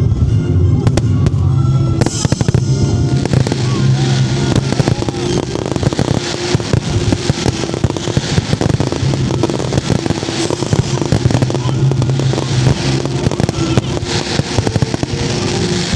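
Aerial fireworks bursting and crackling in a dense barrage that thickens about two seconds in, over music played along with the show.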